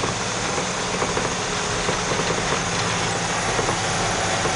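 Grain truck engine running steadily under way, heard from inside the cab.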